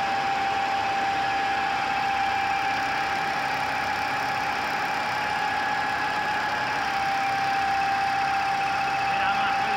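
GIDUE MASTER Combat flexographic label press running: a steady mechanical hum with a constant whine.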